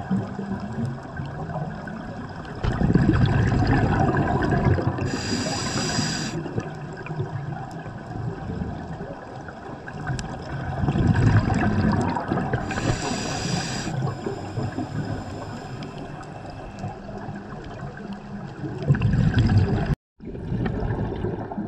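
Scuba diver breathing through a regulator underwater: three gurgling rumbles of exhaled bubbles, about every seven or eight seconds, the first two each followed by a short hiss of inhalation through the regulator. The sound cuts out for a moment near the end.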